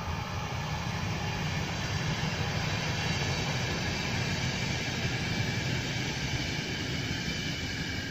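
Electric-hauled passenger train rolling past at speed: a steady rumble of coach wheels on the rails that eases slightly as the last coaches go by near the end.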